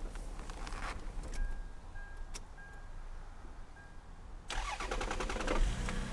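Lexus RX300's 3.0 L 1MZ-FE V6 cranked by the starter, catching about 4.5 s in and settling to idle; a faint repeated beep sounds before it starts. This engine's knock at idle was traced to a cracked flywheel.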